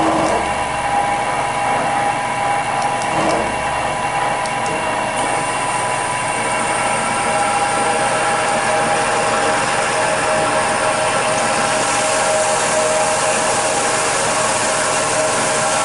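CNC milling machine spindle running steadily with a high multi-tone whine; a hiss grows louder about five seconds in and again near the end.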